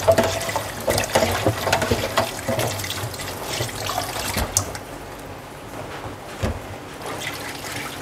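Tap water running into a sink as parboiled pork is rinsed clean, with scattered knocks and clatter. The knocks are busiest at first and thin out about halfway through.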